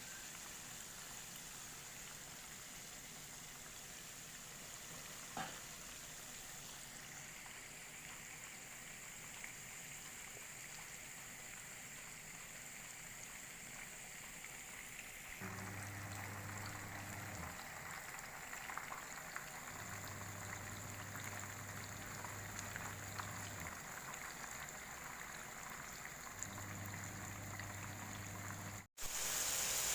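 Chicken pieces deep-frying in hot oil, a faint, steady crackling sizzle. In the second half a low hum comes and goes three times.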